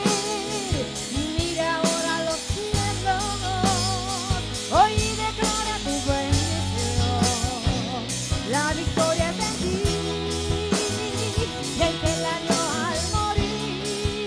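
Live Christian praise music: a band with a drum kit plays steadily under a wavering melodic lead line.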